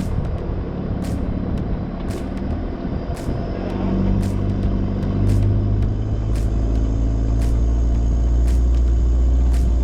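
Four-wheel drive vehicle driving: a steady low engine and road drone that grows a little louder about four seconds in, with a light tick about once a second.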